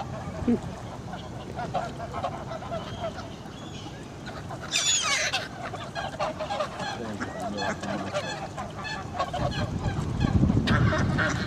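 A flock of geese and ducks calling, many short honks overlapping, with one louder, higher call about five seconds in and a low rumble near the end.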